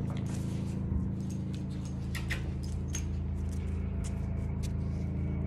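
A steady low mechanical hum, with scattered light clicks and jingles over it from the dog stepping on the tiled floor, its claws and its harness and leash clip.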